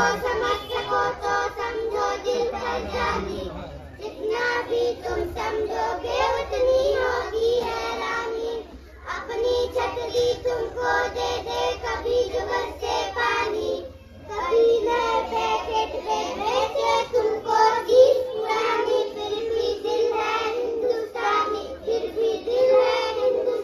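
Children's voices singing a song together with music, in long held phrases that break off briefly about four, nine and fourteen seconds in.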